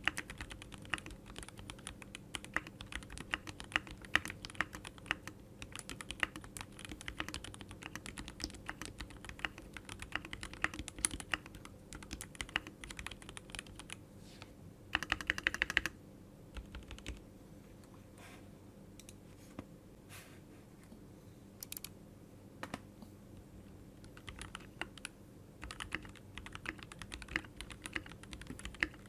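Typing on a keyboard: rapid, irregular key clicks, with a dense flurry about halfway through, then only scattered clicks for several seconds before fast typing picks up again near the end.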